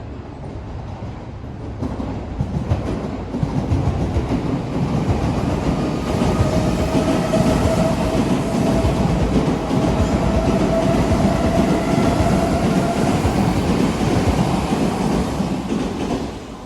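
Odakyu Line electric train running past close by: a rumble and wheel clatter that builds over the first few seconds, then stays loud, with a steady whine through the middle. The sound cuts off suddenly at the end.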